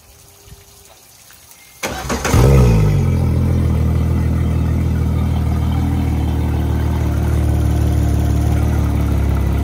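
Yamaha 300 hp V6 four-stroke outboard starting about two seconds in: a brief crank, a rev flare that drops back, then a steady idle. It runs out of the water on a garden-hose flush hookup.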